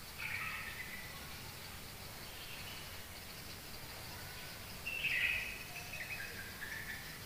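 Birds calling over faint steady background noise: a short burst of chirps just after the start, and a louder, longer one about five seconds in.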